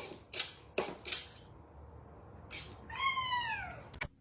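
A cat giving one drawn-out meow that falls in pitch, about three seconds in, after several short noisy bursts; a sharp click near the end.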